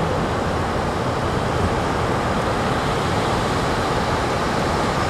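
Steady rushing noise of breaking ocean surf, with a rumbling low end.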